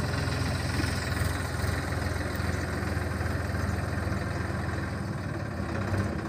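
Tractor diesel engine running steadily at low speed while towing a loaded clay-mixing trailer.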